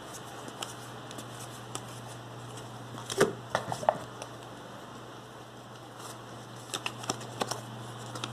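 Yu-Gi-Oh trading cards handled and flicked through by hand: short snaps and rustles of card stock, in a cluster about three seconds in and again near the end.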